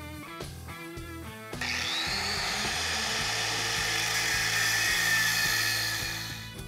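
Angle grinder with a cut-off wheel starting up about a second and a half in, its whine rising as it spins up, then cutting into a metal die ring clamped in a vise, and dying away near the end.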